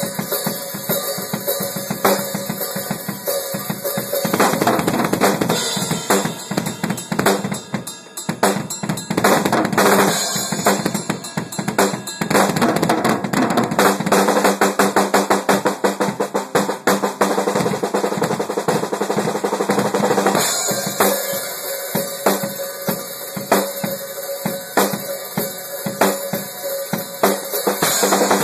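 Drum kit played solo: fast snare and bass drum patterns with drum rolls, the strokes densest from about halfway through until a little past two-thirds of the way.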